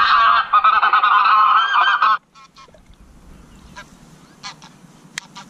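Recorded goose honking played loud through an electronic game caller's horn speaker close by: a rapid run of calls that cuts off abruptly about two seconds in. A few short, much fainter calls follow.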